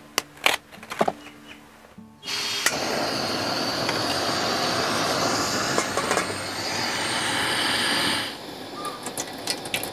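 Scissors snipping a banana leaf a couple of times, then a loud, steady rushing hiss lasting about six seconds that cuts off suddenly, followed by a few light clicks.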